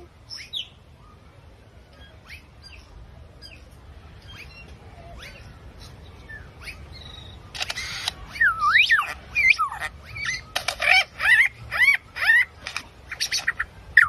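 A bird calling: faint, scattered short chirps for the first several seconds, then from about eight seconds in a run of loud, squawky, whistled calls that sweep up and down in pitch, one after another.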